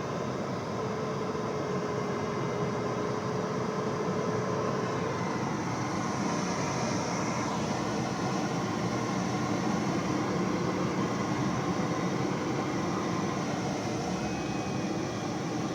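Steady cockpit noise of a small aircraft in flight, mostly airflow and the airframe's hum, with a few faint thin tones over it, one rising slightly near the end.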